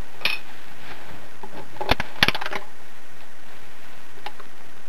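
A few light, sharp metallic clicks and ticks, the loudest pair about two seconds in, over a steady hiss.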